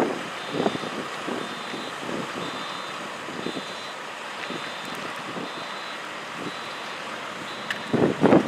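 JCB 510-56 telehandler backing up, its reverse alarm beeping about once a second over the diesel engine running. Near the end, wind gusts hit the microphone.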